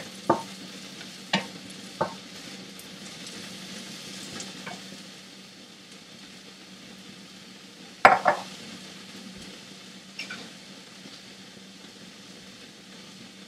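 Spatula clacking against a wok while Chinese okra (angled luffa) stir-fries in oil, with a steady sizzle. A few sharp clacks come in the first two seconds, the loudest about eight seconds in.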